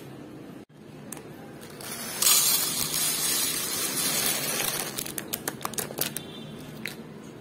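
Dehydrated rice poured from a plastic packet into a plastic tray: a steady hiss of falling grains for a couple of seconds, then a scatter of ticks as the last grains drop.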